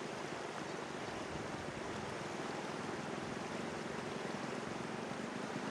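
Shallow river rushing over a rocky bed: a steady, even noise of rapids.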